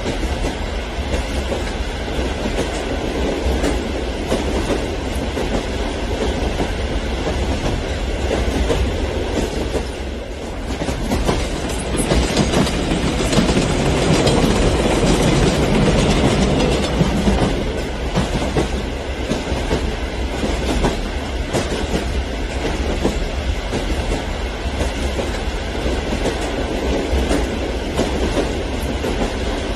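HO scale model passenger train, a DF4 diesel locomotive model with coaches, running along the layout's track: a steady rolling rumble with fine rapid clicking from the wheels. It swells louder for several seconds in the middle.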